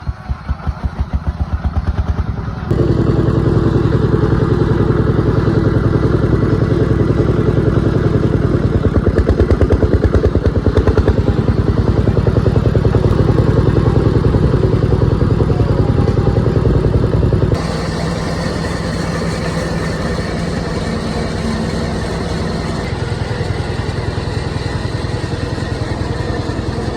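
A small engine running steadily with a fast even pulse, its pitch and loudness changing abruptly twice.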